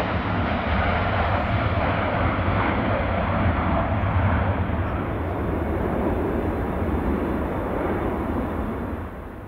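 Jet aircraft taking off: a loud, steady engine rumble that drops off near the end.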